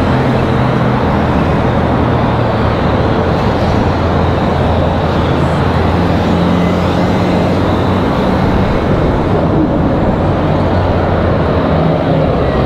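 Steady road traffic noise with a low engine drone from passing cars, with an articulated city bus going by close near the end.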